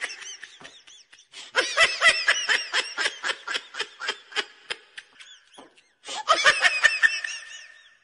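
Laughter sound effect: a high-pitched laugh in quick, rhythmic ha-ha-ha pulses, a long run of about four seconds, then a short pause and a second burst about six seconds in.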